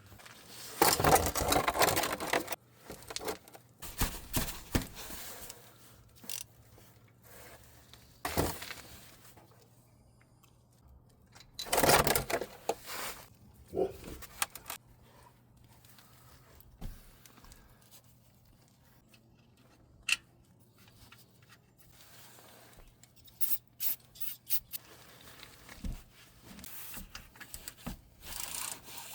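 Intermittent scraping, rubbing and clinking of hands working with tools and parts during an oil change, in uneven bursts with sharp clicks, over a faint steady low hum. The loudest bursts come about a second in and about twelve seconds in.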